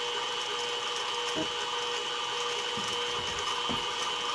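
Mini mill spindle running steadily with a constant whine, and a few faint knocks.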